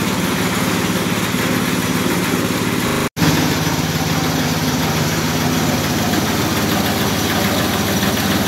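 Compact rice milling machine running steadily, grain pouring through its mesh sieve and down the outlet chute. The sound cuts out for an instant about three seconds in.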